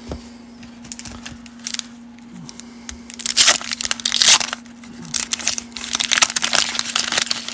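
Wax-paper wrapper of a 1989 Fleer baseball card pack being torn open and crinkled by hand. There are a few light taps and rustles at first, then a dense run of crackling and tearing from about three seconds in.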